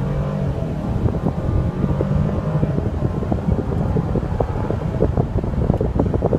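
Mercedes-Benz SL550's twin-turbo V8 running steadily, heard from inside the cabin along with wind noise on the microphone.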